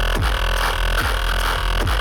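Electronic dance music with heavy bass and a steady beat of kick drums that drop steeply in pitch.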